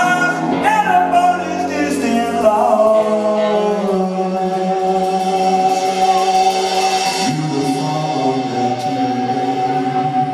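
Punk rock band playing live, with a man singing. From about two seconds in, one long high note is held to the end, over sustained chords that shift lower about seven seconds in.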